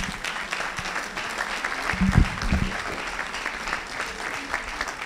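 Audience applauding: many hands clapping in a dense, even patter, with a couple of brief low bumps about two seconds in.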